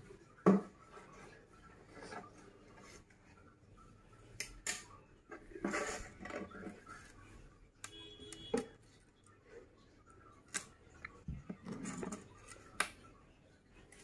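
Scattered light knocks, taps and rustling as a toddler rummages by hand in an open kitchen drawer holding onions, potatoes and onion-skin debris, with a few sharper clicks spaced a couple of seconds apart.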